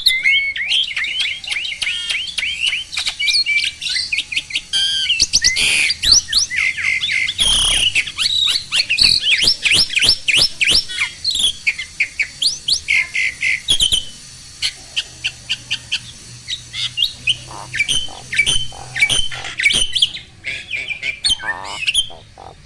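Jalak (Asian starling) song: a rapid string of sharp whistles and chattering notes, dense for the first half and thinning out after about fourteen seconds. It is the lively singing that keepers play as a master recording so a quiet bird will start singing too.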